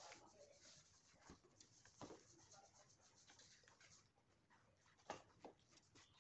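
Faint rustling and scraping of a cardboard panel covered in black paper as it is handled and folded, with a few soft taps of the board, the clearest about two seconds in and about five seconds in.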